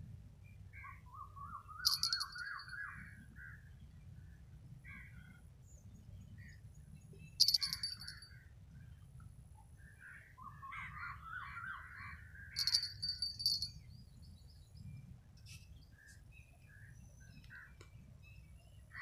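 Birds calling: repeated rising trills and a few sharp, high chirps, the loudest about seven and a half seconds in, over a low steady rumble.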